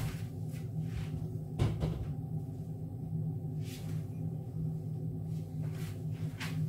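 A kitchen cupboard and its contents being handled: a few scattered knocks and clicks, the loudest about two seconds in, over a steady low hum.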